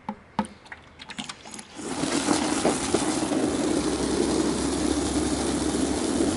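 A few short clicks and knocks. Then, about two seconds in, a garden hose spray nozzle starts jetting water into a plastic bucket of soapy water, a loud steady rush with a hollow low churn as the suds build up.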